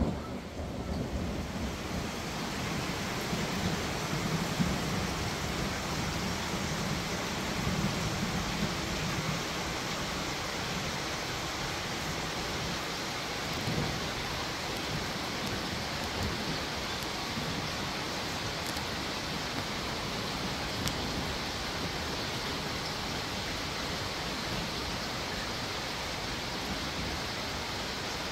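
Steady rain falling, with distant rolling thunder rumbling low and dying away over the first ten seconds or so.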